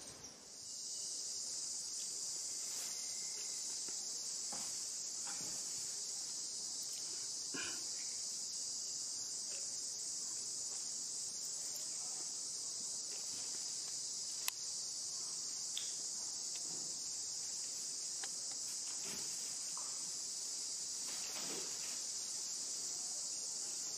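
Steady high-pitched chorus of insects, with a few faint rustles and ticks and one sharp click about halfway through.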